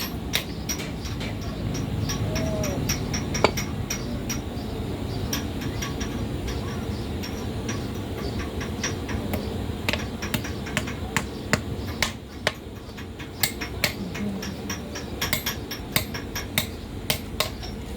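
Irregular sharp taps of a hammer on metal, coming in quick runs, over a steady low workshop noise.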